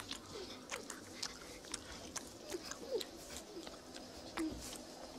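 A grizzly bear licking a cub's face: wet licking and mouth clicks, with the cub giving several short whimpers.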